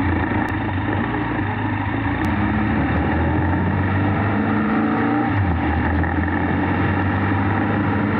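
Benelli TRK 502X motorcycle's parallel-twin engine running steadily while riding, its note dipping briefly and rising again a little past the middle.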